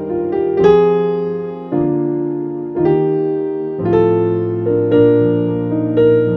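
Slow background piano music: chords struck about once a second, each ringing out and fading before the next.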